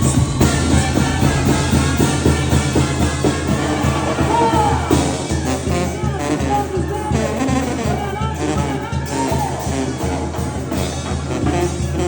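Mexican banda music with a steady beat, held bass notes and singing.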